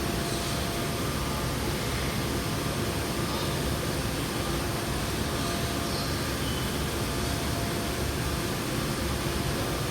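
Steady rushing background noise with a faint, even hum under it.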